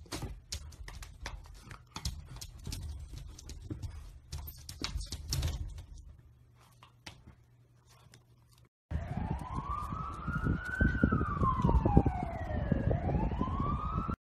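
Scattered taps and knocks over a low rumble. After a sudden change about nine seconds in, a siren wails, its pitch rising and falling slowly, with thumps underneath.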